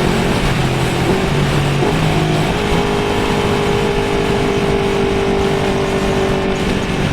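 Motorcycle engine running steadily under way, over a steady rush of noise. Its pitch steps up about two and a half seconds in.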